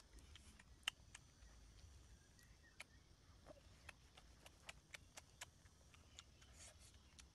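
Near silence broken by faint, irregular clicks and ticks, the loudest about a second in.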